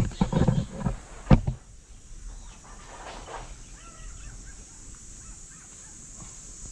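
Branches and leaves of a santol tree shaking and knocking for about a second and a half, with one sharp crack near the end of it. After that come a few faint bird chirps.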